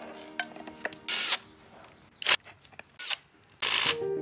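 Cordless impact wrench run in four short bursts, each well under half a second, spinning bolts out of a car engine block. Faint background music comes in near the end.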